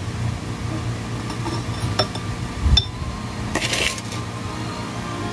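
A spoon clinking and tapping against a glass jar as powdered ginger tea is spooned into it: a few separate clinks, with a short scraping rush about three and a half seconds in.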